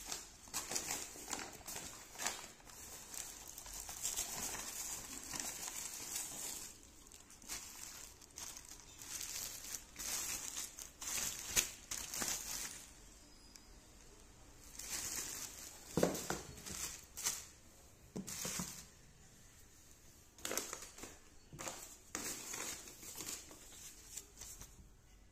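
Plastic bag and paper mailer crinkling and rustling in irregular bursts as a parcel is unwrapped by hand, with a few short pauses.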